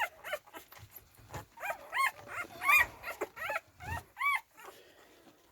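Young American Bully puppies whining: a run of short, high-pitched cries, about two a second, from puppies woken and disturbed from sleep.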